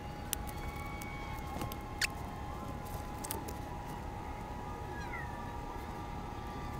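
Scattered light clicks and taps of metal parts as the shift lever and bracket are fitted back onto a transmission's shift shaft, the sharpest about two seconds in, over a steady hum. A short squeak falling in pitch comes about five seconds in.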